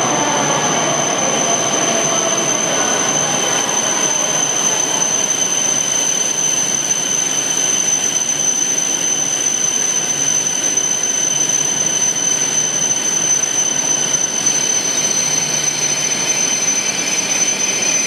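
Coupled E6 Komachi and H5 Hayabusa shinkansen slowing to a stop at the platform. A whine falls in pitch over the first few seconds as it decelerates, over a steady high-pitched tone and rail noise, with a hiss of brakes and wheels rising near the end.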